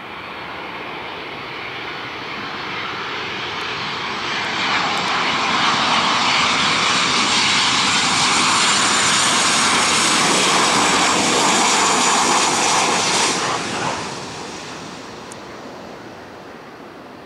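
Boeing 737-700 airliner on final approach passing close by, its CFM56 jet engines getting louder as it nears, with a faint falling whine in the high notes. The noise is loudest for several seconds, drops off sharply about 14 seconds in, then fades to a lower rumble.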